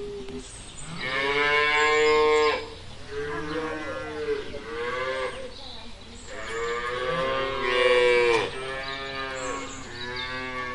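Cattle mooing: about six long, drawn-out moos one after another, the loudest about two seconds in and again about eight seconds in.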